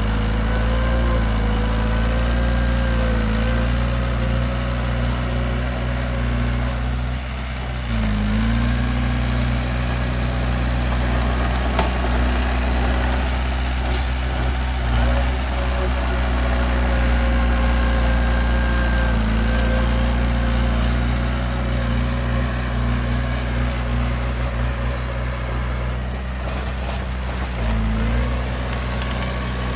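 Heavy diesel engine of earthmoving machinery running steadily. Its pitch dips briefly twice, about a quarter of the way in and again near the end.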